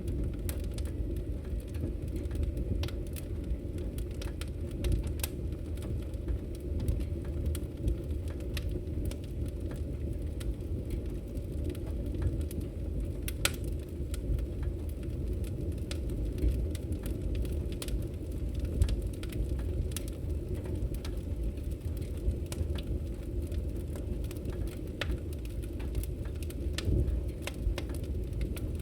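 Wood fire burning in a fireplace: a steady low roar of flames with frequent irregular crackles and pops.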